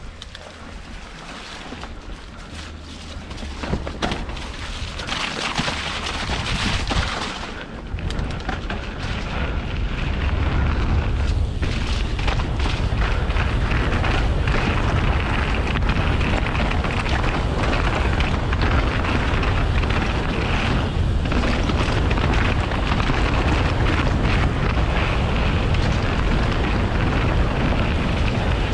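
Wind buffeting an action camera's microphone as a mountain bike is ridden along a trail, a steady low rumble with scattered knocks and rattles from the bumps. The rumble grows louder about ten seconds in.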